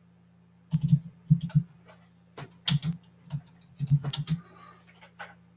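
Typing on a computer keyboard: irregular runs of keystrokes with short pauses between them, over a faint low hum.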